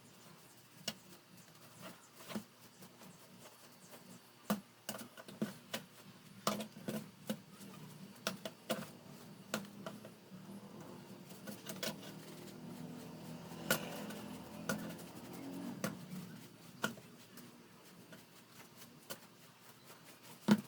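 Irregular light clicks and taps of an electric fan's parts being handled and cleaned, with a softer, steadier noise for several seconds about halfway through.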